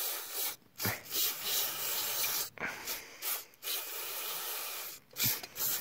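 Aerosol carburetor cleaner hissing out through a thin straw into the open carburetor of a KTM 85, in about five bursts with short breaks between them. The spray is flushing out a carburetor that keeps flooding.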